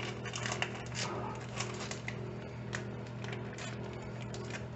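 Plastic bag of shredded cheese being handled and opened: a dense run of crinkling crackles in the first two seconds, thinning to scattered crackles afterwards, over a steady low hum.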